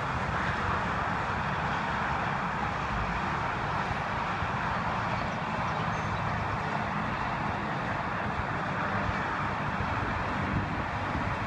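Steady hum of highway traffic, an even rush of passing cars and trucks with no single vehicle standing out.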